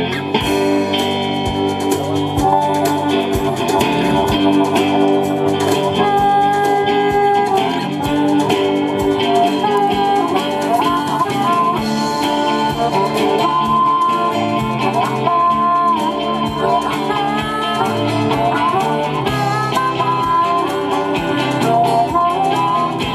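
Live blues-rock band playing an instrumental passage: electric guitar, bass and drum kit keeping a steady beat, with a harmonica played into the vocal microphone, its notes bending up and down.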